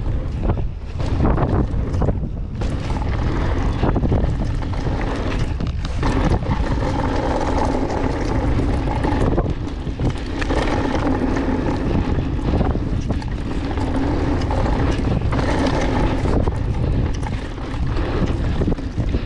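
Wind buffeting the microphone over the rolling noise of a mountain bike's tyres on hardpacked dirt as it rides a jump trail, with a few brief dips in the noise.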